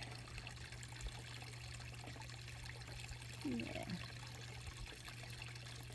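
Quiet, steady trickle of running water at a garden pond.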